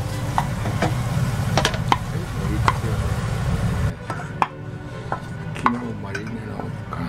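A wooden spatula tapping and scraping against an aluminium saucepan as stir-fried butterbur stalks are stirred and then pushed out of the pan into a bowl, about ten separate clacks. Under the first half runs a low frying noise that stops about four seconds in, when the pan is tilted away from the heat.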